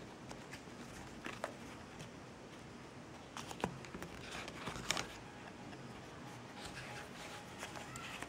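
Faint handling noises: a few soft clicks and rustles as fingers move a paper booklet and lift a wristwatch out of its cardboard presentation box. The sharpest click comes about five seconds in.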